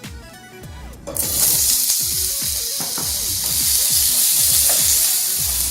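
Cubed red potatoes going into hot olive oil in a pan about a second in, setting off a loud, steady sizzle of frying.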